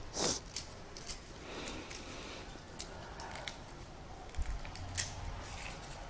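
Garlic cloves being broken apart and peeled by hand: dry papery skins crackling, with a few sharp clicks spread through, the loudest about a quarter of a second in.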